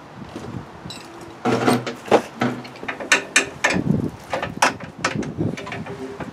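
Rusty steel snow-plow push frame clanking and rattling as it is handled and fitted to a garden tractor: irregular metal knocks and clinks, starting about a second and a half in.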